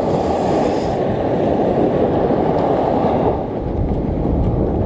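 Strong wind rushing over the microphone together with surf on the beach: a loud, steady, rumbling noise.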